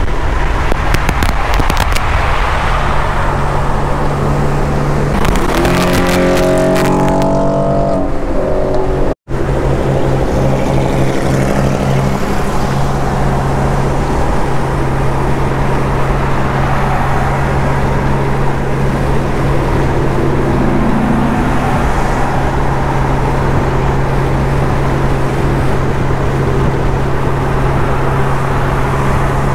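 Car engine and exhaust while driving: the engine pulls up with a rising pitch about five to eight seconds in, then holds a steady drone at cruising speed. The sound cuts out for an instant about nine seconds in.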